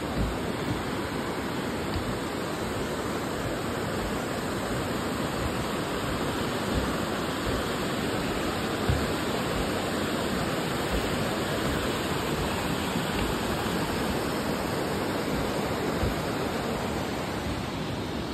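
Rushing water of a rocky river, white water tumbling over boulders: a steady, even rush, with a few short low bumps now and then.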